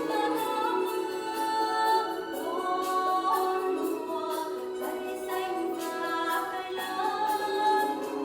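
A song playing: singing over a melodic accompaniment with a regular beat.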